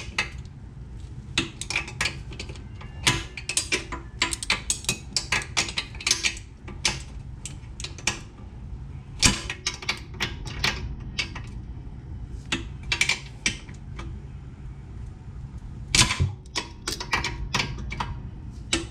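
Metal wrench clinking and ticking irregularly against a 17 mm swing-arm nut and bolt on an ATV as it is worked in a tight spot, with a low steady hum underneath.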